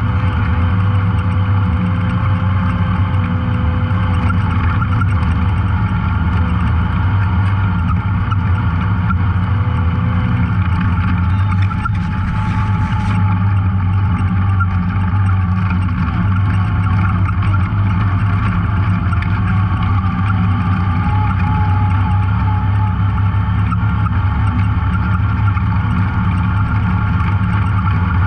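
Off-road vehicle engine running steadily while riding a trail, its pitch drifting slightly up and down with speed, with a brief hiss about twelve seconds in.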